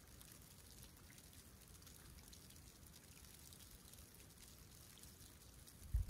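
Faint lapping and trickling of calm sea water at a snowy shoreline, with a low steady rumble and scattered tiny ticks. A sudden low thump comes right at the very end.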